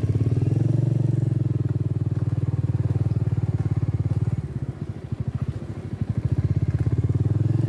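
Motorcycle engine running while riding a dirt track, a steady rapid pulse of exhaust beats. It eases off for a second or so past the middle, then picks up again.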